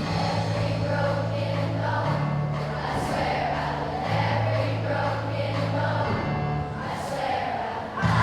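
Music with singing voices over held bass notes that change pitch every second or two.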